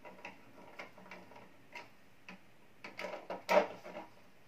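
Small screwdriver turning the terminal screws of a plastic LED driver's connection block: faint, irregular ticks and clicks, with a louder cluster of clacks about three seconds in.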